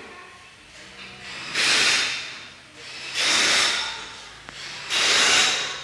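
Compressed air from a workshop air tool hissing in three blasts of about a second each, a second or so apart.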